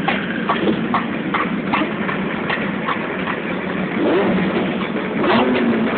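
Motorcycle engines running on the street, under a regular knocking beat about two a second that fades out around the middle. Rising and falling engine tones come near the end.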